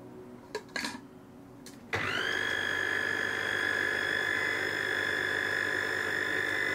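Food processor: a few plastic clicks as the lid goes on, then about two seconds in the motor starts, spinning up quickly to a steady high whine as it blends a liquid cream-cheese batter.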